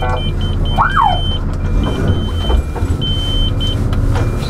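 The armoured vehicle's electronic siren gives one short rising-and-falling whoop about a second in. Under it a high electronic beeping sounds, quick at first, then a few longer separate beeps, over the steady idle of the vehicle's engine.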